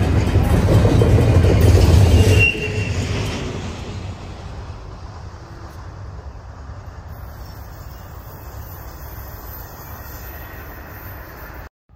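Freight train cars rolling past a level crossing, a loud rumble of wheels on rail that drops off sharply about two and a half seconds in as the last car clears, leaving a fainter steady rumble of the receding train.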